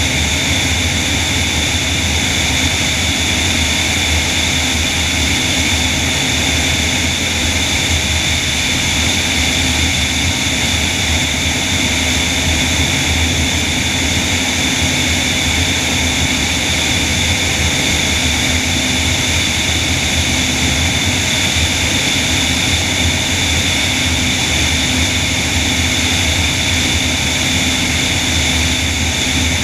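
Propeller and airflow noise of the all-electric DHC-2 Beaver in steady cruise, driven by its magniX magni500 electric motor, heard from a camera on the wing with wind rushing over the microphone. A loud, unchanging drone with a few steady high tones over it.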